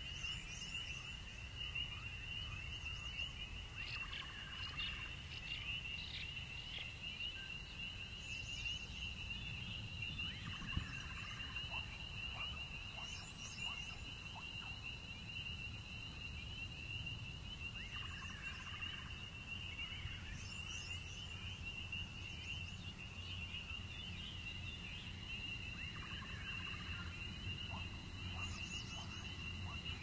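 Night ambience of crickets trilling steadily, with a frog croaking in short bursts every several seconds over a low rumble.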